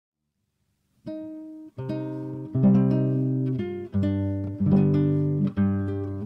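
Acoustic guitar music: strummed chords that start about a second in, a new chord roughly every second, each ringing on.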